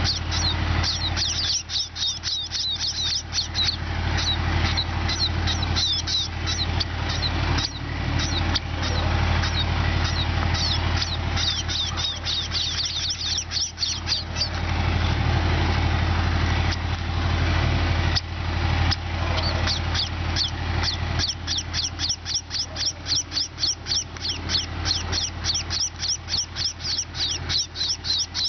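A flock of sparrows chirping in quick overlapping bursts, thinning out for a while midway, over a steady low hum.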